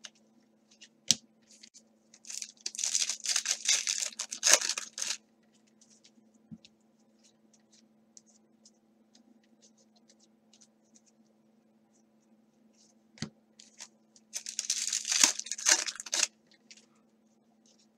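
Crinkling and tearing of plastic trading-card packaging in two bursts, one about two seconds in and one near the end, with light clicks of cards being handled in between.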